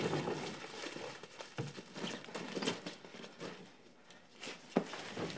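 Rustling and crinkling of plant leaves and soil being handled as someone digs in a potted plant, with scattered light knocks and a sharper click just before the end.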